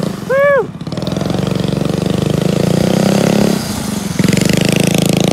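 DTV Shredder tracked vehicle's small gas engine running under throttle. It eases off a little past the middle and picks back up. A short rising-and-falling shout comes about half a second in.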